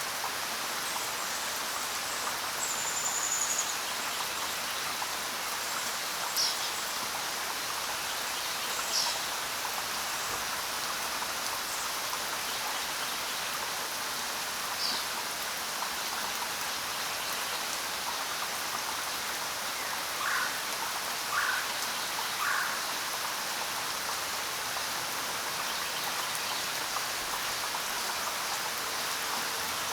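Steady rain with a few short bird calls: a high whistle early on, scattered chirps, and three lower chirps in a row about two-thirds of the way through.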